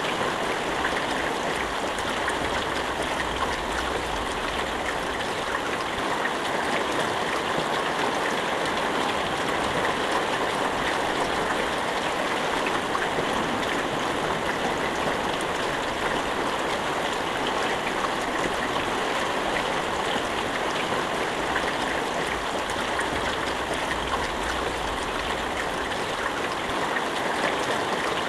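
Steady rain falling, a dense, even hiss of drops without thunder.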